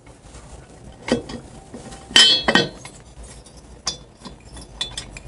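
Sharp metal clinks and taps as an aluminium motorcycle cylinder head and a wrench are handled and set onto the cylinder: a few separate knocks, the loudest about two seconds in, then lighter ticks.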